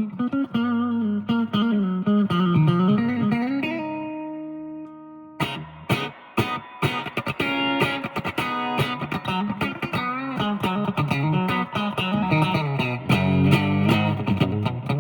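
Fernandes TEJ-70 electric guitar being played: a line of notes that slide and bend in pitch, then a chord left ringing and fading for about a second and a half, followed from about five and a half seconds by quick picked notes and chords.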